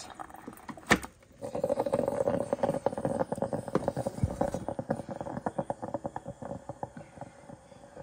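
Drip coffee maker brewing: hot water gurgling and sputtering through the basket into the carafe with a rapid crackling. There is one sharp clunk about a second in.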